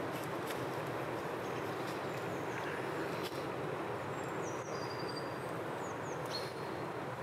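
Steady outdoor background noise, with a few faint, short, high bird chirps from about halfway through to near the end.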